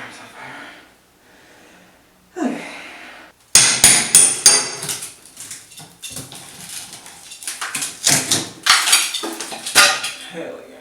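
Hand hammering in demolition work: sharp, irregular blows with a hard, clattering ring, starting about three and a half seconds in and going on at a few strikes a second.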